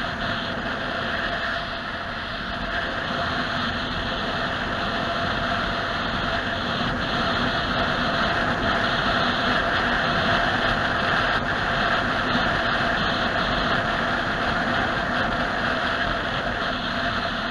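Steady engine and road noise inside a moving vehicle's cabin, with a constant hum under a hiss, picked up by a dashcam.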